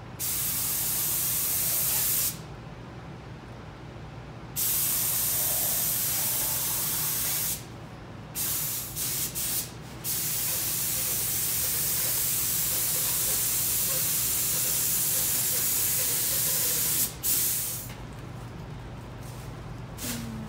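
Gravity-feed paint spray gun on a compressed-air hose spraying paint in trigger-pulled passes of hissing air. There is a two-second pass, a three-second pass, a few quick short bursts, then a long pass of about seven seconds and a brief one. A steady low hum runs underneath.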